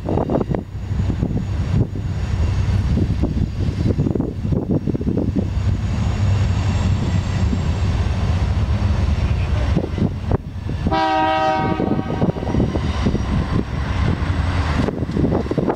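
Diesel train rumbling by with a steady engine drone, then the locomotive's air horn sounds a chord of several notes for about a second and a half near the end, and starts again just before the end.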